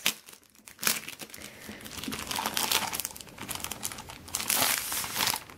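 Clear plastic protector sleeve crinkling and rustling as it is handled around a large book, with a louder stretch of crinkling near the end.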